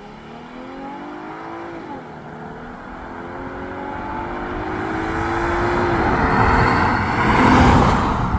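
Car engine at full throttle accelerating from a standstill toward 100 km/h. Its pitch climbs, drops at upshifts about 2 s in and about 6 s in, then climbs again, getting louder throughout.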